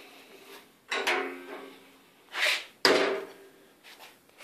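Two sudden metallic knocks, each ringing briefly and fading, about a second in and again just before three seconds, with a short hiss between them: the bandsaw's steel frame being knocked while it is handled.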